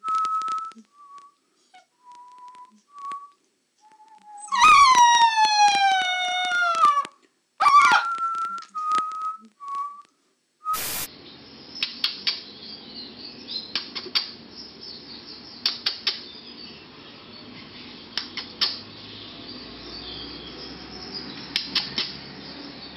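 Husky-type puppy whimpering in thin high whines, then letting out one long howl that slides down in pitch, followed by a short rising-and-falling yelp and a few more whines. After a cut, only faint hiss with scattered light clicks.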